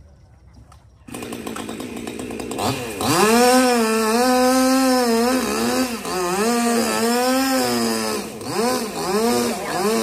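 Two-stroke chainsaw coming in suddenly about a second in, running lower, then revved to full speed from about three seconds in and held there while cutting, its pitch sagging and recovering under load. Near the end it is blipped up and down a few times.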